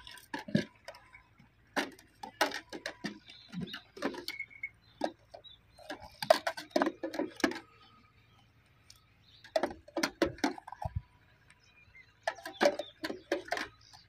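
Metal one-litre measuring mug clinking and scraping against metal milk buckets as milk is scooped up and poured out, in short clusters of sharp clinks every two to three seconds, some with a brief metallic ring.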